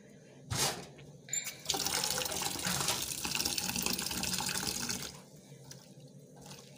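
Tap water running into a steel bowl of small dried fish (omena) in a stainless-steel sink. The stream starts about two seconds in and is shut off about three seconds later, after a short noise about half a second in.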